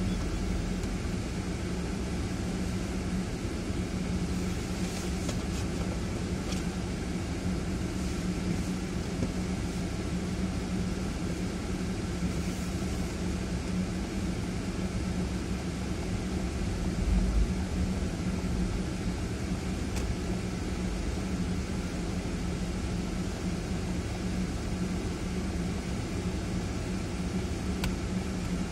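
Ford Fiesta's engine running steadily, heard as a constant low hum from inside the cabin, with one brief low thump a little past halfway.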